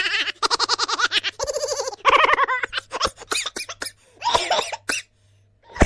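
Recorded laugh sound effects played back to back: a rapid, evenly pulsed ha-ha-ha laugh, then several shorter laughs with brief gaps between them.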